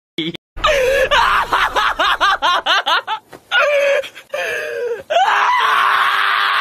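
Shiba Inu screaming while restrained on a vet's exam table: rapid high yelps about five a second, then a few longer cries, and from about five seconds in one long held scream. It is a dog's distress protest at being held for handling.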